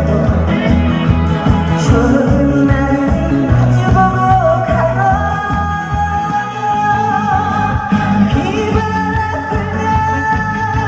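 A woman singing a Korean trot song live over an amplified backing track with a steady beat, holding long notes.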